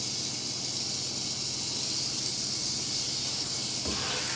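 Eastern diamondback rattlesnake rattling its tail in a steady high buzz, the defensive warning of a snake disturbed by being hooked. A short knock sounds near the end.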